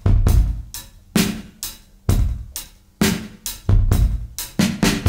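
Background music: a drum-kit beat of kick, snare and hi-hat, about two hits a second, with no other instruments yet.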